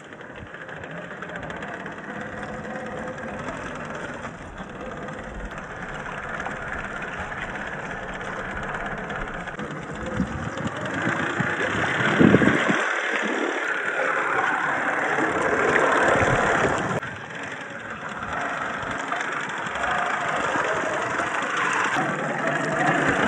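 Axial SCX10 III RC crawler's brushless motor and drivetrain running as it drives through shallow creek water, with water splashing around the tyres. It gets louder about halfway through, with a dip shortly after and a swell again near the end.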